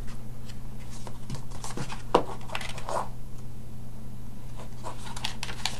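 A small paper booklet being handled and leafed through on a tabletop: scattered light page rustles and taps, with one sharper tap about two seconds in, over a steady low hum.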